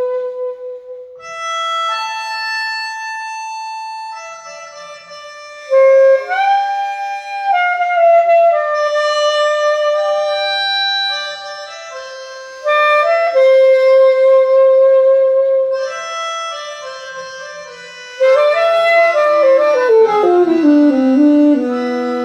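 Alto saxophone played live over a recorded melodica (pianica) piece: slow, held reedy notes, some bent into pitch, then a falling run of notes near the end.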